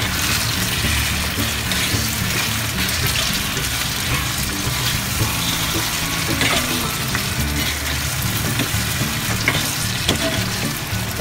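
Sliced hotdogs in banana ketchup sizzling in a frying pan while a metal spoon stirs them, with a few brief scrapes of the spoon against the pan.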